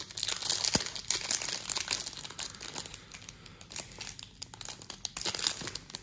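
Foil hockey card pack wrapper crinkling and tearing as it is pulled open by hand, in a run of sharp crackles with a quieter spell about halfway through. The pack does not open easily.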